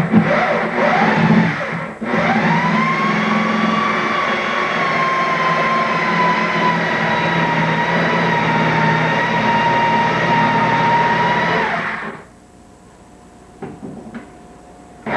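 A motor runs at a steady whine for about ten seconds, then cuts off. Its pitch rises as it starts and sags a little while it runs. Knocks and clatter come just before it starts.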